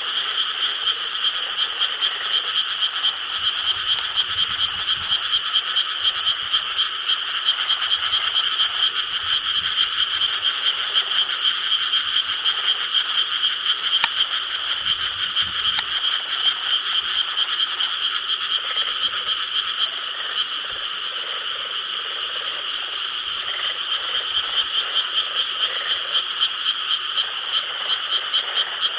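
A dense chorus of many frogs croaking together, a steady wall of fast, pulsing calls that eases briefly about two-thirds of the way through, then picks up again.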